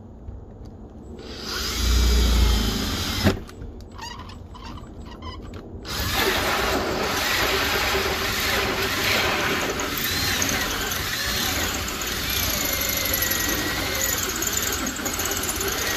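Cordless drill turning a hole saw into a trailer's sheet-metal wall. After a quieter start with a low thump and a sharp knock, the cut picks up about six seconds in and runs steadily, with the saw teeth squealing against the metal in wavering tones.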